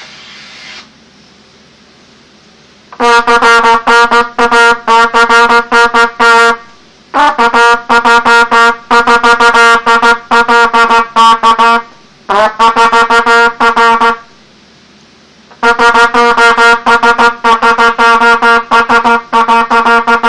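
Mendini trumpet tongued fast on a single note, sounding out Morse code as rapid short and long blasts. There are four quick runs with short pauses between them, after a brief rush of air at the start.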